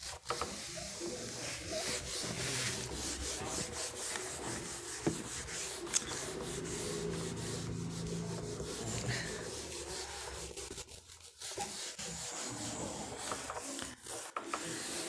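A steady scratchy rubbing sound with a few sharp clicks, briefly dropping away a little past the middle.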